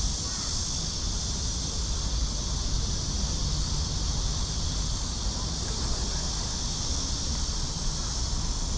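Wind rumbling on the microphone over a steady high-pitched insect drone.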